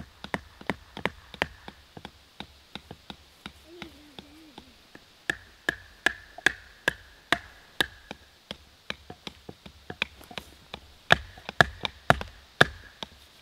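Tent stakes being hammered into the ground: a long run of sharp, irregular strikes, about two or three a second, some with a short metallic ring after them, growing louder near the end.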